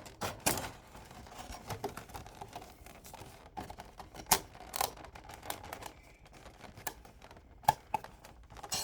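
Box and packaging being handled while a diecast model car is unboxed: irregular sharp clicks and taps, the loudest a little after 4 seconds and two close together near the end.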